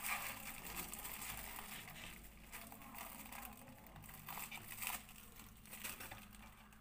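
Faint rubbing and soft knocks of hands rolling a lump of maida dough into a log on a wooden chopping board, over a steady low hum.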